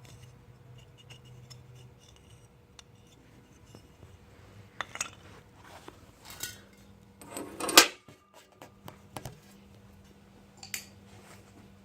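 Small metal engine parts and tools clinking and scraping as they are handled, in a few separate clinks, the loudest about eight seconds in.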